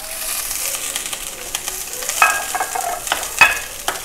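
Dried chillies and curry leaves sizzling in hot oil in a non-stick pan while a wooden spatula stirs and scrapes them, with a few sharp knocks of the spatula on the pan, the loudest about three and a half seconds in.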